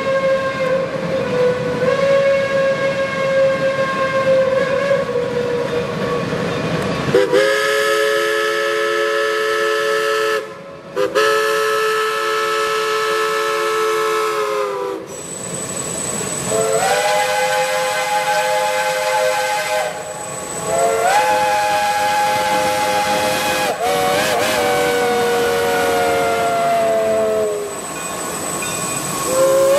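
Chime steam whistles on geared Shay and Climax steam locomotives blowing a run of long blasts. The chord changes pitch from blast to blast as different locomotives' whistles take their turn, each blast held several seconds with short breaks between them.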